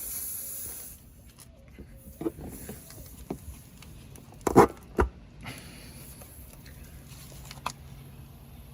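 Scattered clicks and light knocks of a tire repair tool being handled at the tire, with two sharper knocks about halfway through.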